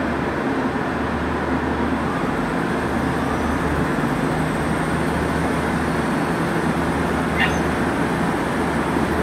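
Diesel railcar train's engines running steadily while it stands at the platform, a constant low hum and rumble. A short high chirp sounds once about seven seconds in.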